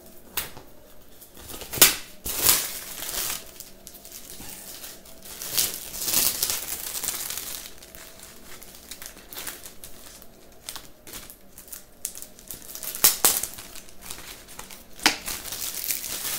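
Clear plastic packaging bag crinkling and rustling as it is handled and opened, in irregular bursts with a few sharp crackles.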